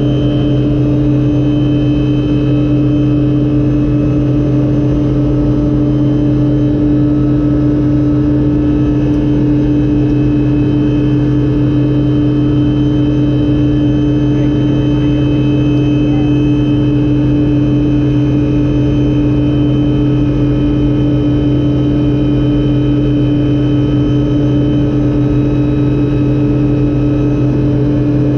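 Loud, steady engine drone with a strong low hum that holds the same pitch throughout.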